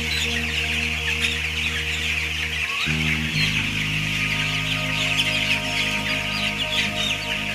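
Dense, continuous peeping of a large flock of 14-day-old broiler chickens, many birds calling at once. It plays under background music with sustained low notes that shift to a new chord about three seconds in.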